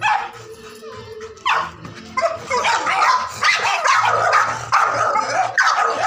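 A dog barking and yipping repeatedly, with music playing underneath.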